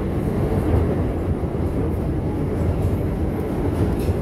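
Bombardier R142 subway train running on the rails, a steady rumble of wheels and car body with a few faint clicks near the end.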